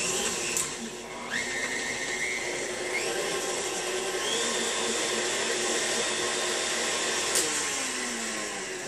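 Electric tilt-head stand mixer running, mixing stiff cookie dough in its steel bowl with a steady whir. The motor's pitch steps up a few times, a click comes near the end, and the motor then winds down with a falling tone.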